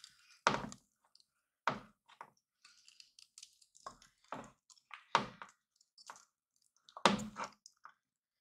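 Wooden spoon stirring a thick, sticky melted mixture of chocolate chips, peanut butter and corn syrup in a stainless steel saucepan. The spoon makes irregular separate strokes about once a second, and the loudest comes near the end.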